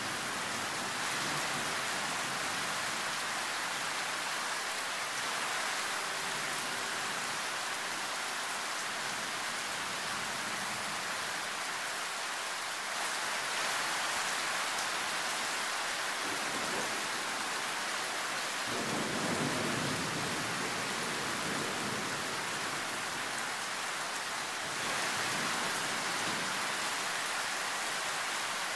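Loud tropical rain pouring steadily during a thunderstorm. A low rumble of thunder swells about two-thirds of the way through, then fades.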